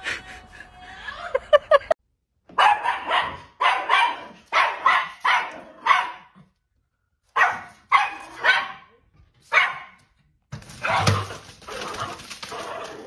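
Small fluffy dog barking repeatedly: short sharp barks, about two a second, in two runs with a short pause between them.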